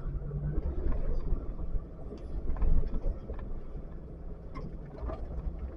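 Off-road vehicle's engine running at low speed as it climbs a rutted dirt trail, with a steady low rumble and scattered knocks and clicks.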